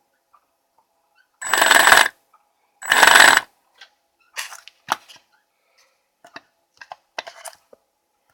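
A brushless motor driven by a 30 A ESC spins up in two short bursts with a thin high whine, followed by scattered clicks and brief rattles as it stutters. The ESC is only partly working.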